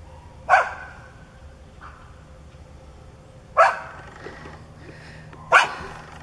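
Large brown dog barking three times, single sharp barks a few seconds apart.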